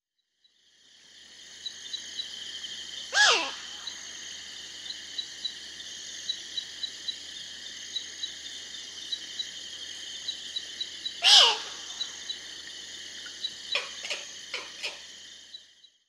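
A steady, high-pitched insect chorus with regular short chirps, fading in and out. A bird gives two loud calls that sweep downward in pitch, about 3 and 11 seconds in, then several short calls near the end.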